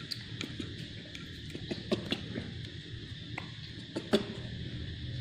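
Scattered small clicks and taps of a plastic milk bottle as a baby monkey handles and mouths it, with a few sharper clicks around two seconds in and again about four seconds in, over a steady low hum.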